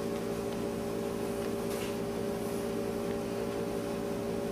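Steady room hum made of several held low tones over a faint hiss, with no speech.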